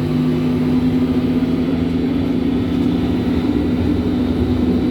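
BVG type H01 underground train running between stations, heard from inside the car: a steady rumble of the wheels on the rails with steady humming tones from the drive. The lower hum fades out about four seconds in.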